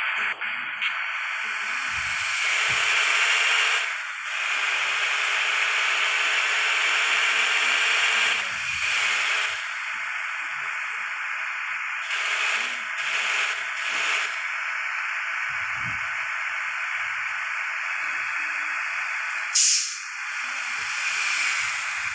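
Steady rushing wind and road noise of a moving bus, rising and falling a little. A short, sharper hiss comes near the end.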